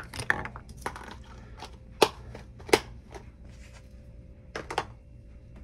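Clear plastic lid of a worm cup being handled and pressed shut: a series of irregular sharp plastic clicks and crackles, the loudest about two seconds in and again under a second later.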